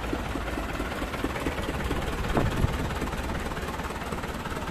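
Vintage Hindustan tractor's diesel engine running steadily at low speed, its firing beats heard as a regular low throb, with one sharp thump about two and a half seconds in.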